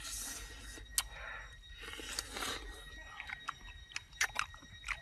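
A person eating baked duck: chewing and biting, with a run of short sharp clicks in the second half.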